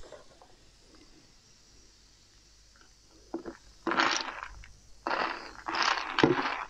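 Plastic spoon stirring and scooping through a glass mug of eggs soaked in cola: quiet at first, then from about three seconds in, irregular bursts of scraping and clinking against the glass, with the liquid sloshing.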